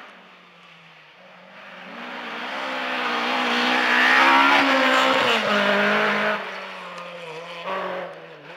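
Ford Escort Mk2 rally car's engine revving hard as it approaches and passes. The note climbs to its loudest about four seconds in, drops sharply a second later, then carries on at a lower pitch as the car pulls away.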